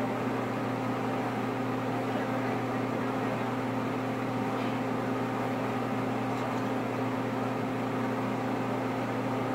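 Steady low electrical hum, unchanging in pitch and level, with nothing else standing out.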